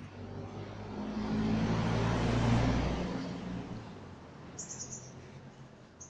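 A motor vehicle driving past, its engine and tyre noise swelling to a peak about two and a half seconds in and then fading away.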